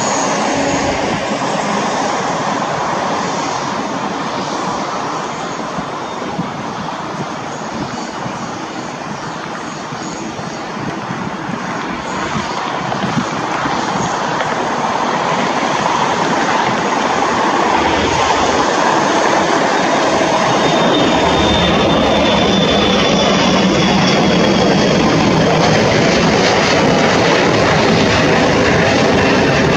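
Boeing 787-9's twin turbofan engines running at low power as the airliner rolls along the runway after landing: a steady jet roar that grows louder in the second half, with a faint high whine drifting down in pitch partway through.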